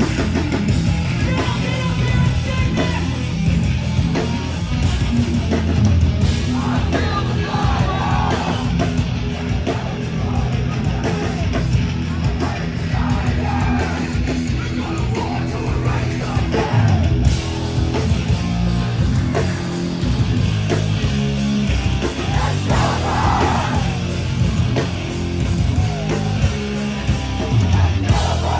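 Hardcore band playing live and loud: heavily distorted electric guitars, bass and pounding drums, with shouted vocals coming in now and then.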